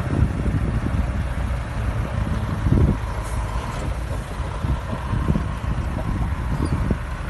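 Heavy truck diesel engines running under load as one truck tows another out of the snow on a rope, with a louder surge about three seconds in.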